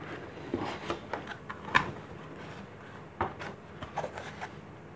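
Cardboard packing insert rubbing and scraping as it is pulled out of a cardboard box, with a few sharp taps and knocks, the sharpest about two seconds in.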